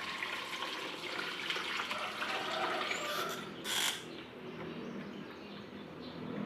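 Water running from a tap while hands are washed under it, with a brief louder rush of water just under four seconds in.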